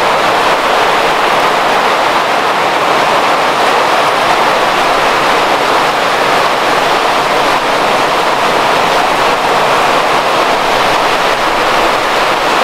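Heavy rain pouring down steadily and splashing on wet paving stones, a loud, even hiss.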